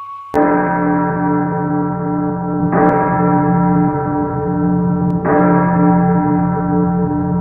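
A deep bell tolling three times, about two and a half seconds apart, each stroke ringing on into the next.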